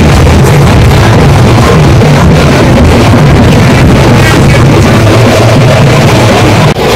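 Loud, distorted music from the procession's big barrel drums: dense pounding with a heavy low rumble, overloading the microphone.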